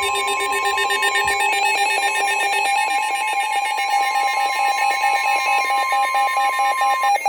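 Emergency Alert System attention signal: loud, steady electronic alert tones sounding together. A low tone drops out about two and a half seconds in, and the higher tone cuts off near the end.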